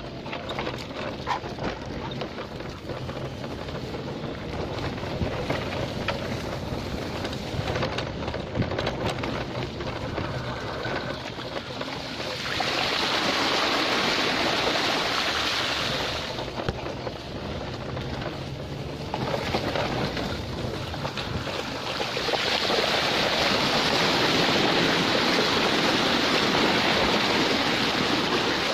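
E-bike tyres rattling over a rough, wet dirt track, then hissing and splashing through floodwater in two long stretches: one about twelve seconds in lasting a few seconds, and another from about twenty-two seconds in until near the end.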